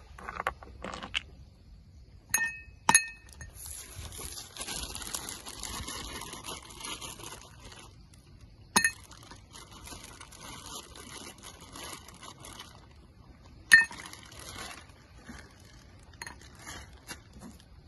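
Glasses and tableware clinking: four sharp, ringing clinks spread through, with a few lighter ticks near the end and a soft hiss in between.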